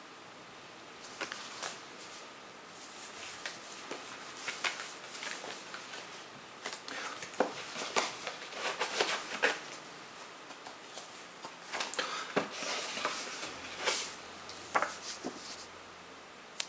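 CD packaging being handled: scattered rustles, scrapes and small clicks and taps of cardboard digipak sleeves and cases.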